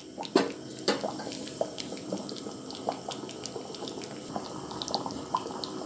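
Thick, creamy masala gravy with paneer coming to a boil in a kadai, bubbles popping irregularly with many small plops.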